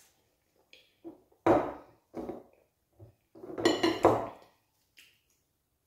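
Close-miked eating sounds as fufu and banga soup are eaten by hand, coming in several separate bursts. The longest and loudest comes a little after the middle, with the hand at the mouth.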